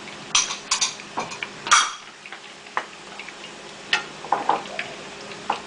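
A metal utensil clinking and scraping against a cooking pot while stirring hot chili sauce and garlic in oil, with about eight sharp irregular clanks, the loudest about two seconds in, over a steady faint hiss.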